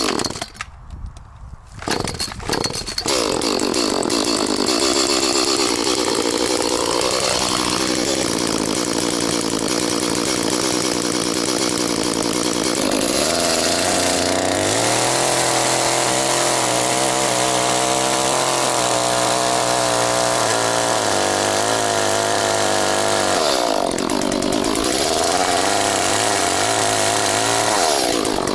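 Chainsaw engine running hard, coming up about two seconds in. Its pitch wavers at first, holds steady through the middle, and dips briefly near the end.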